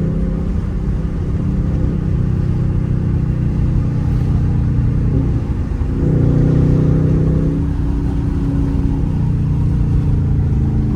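Dodge Charger R/T's 5.7-litre Hemi V8 running loud through an exhaust with its rear and mid mufflers cut off and 5-inch tips, a steady low drone. It swells louder about six seconds in, then settles back.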